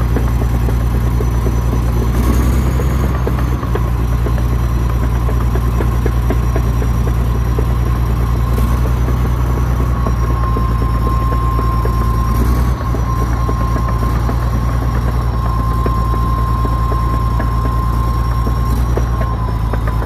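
Komatsu D85EX crawler dozer's diesel engine running steadily with a deep drone, a held whining tone over it and a fainter high whistle, each rising slightly for a moment about two seconds in and again near the middle.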